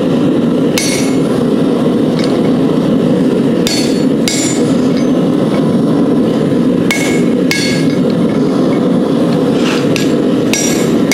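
Hammer blows on a hot cut, cutting into a hot railroad spike: about half a dozen ringing metal strikes, spaced irregularly and some in quick pairs. A loud, steady rushing noise runs underneath.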